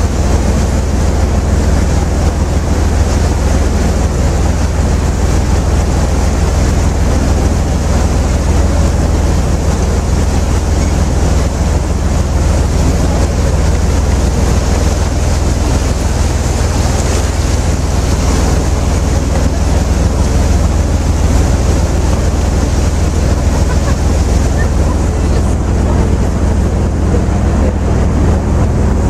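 Steady drone of a tour riverboat's engine under way, with water rushing along the hull and wind on the microphone.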